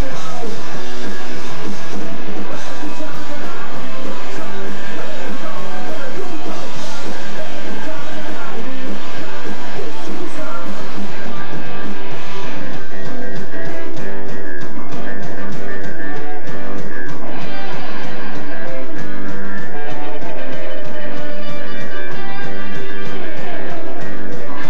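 A punk rock band playing live: electric guitars, bass and drums, recorded very loud through a camcorder microphone.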